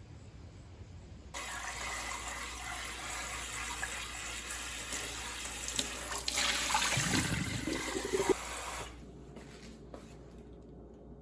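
Water running, starting suddenly about a second and a half in, growing louder and fuller past the middle, then stopping abruptly.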